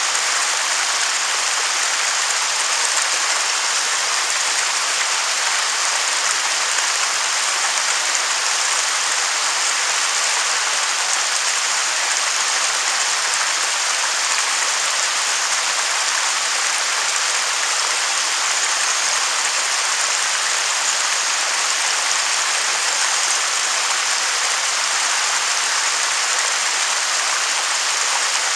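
Waterfall: falling water making a steady, even hiss with little low end.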